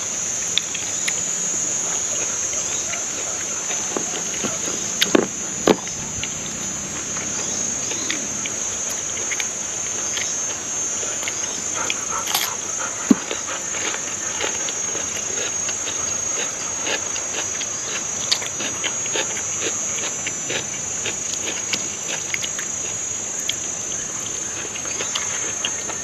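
A steady, high-pitched chorus of insects, with scattered soft clicks and smacks of someone chewing food.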